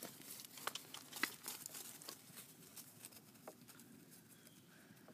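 Faint, irregular crackling and rustling of footsteps through dry, matted grass, thinning out toward the end.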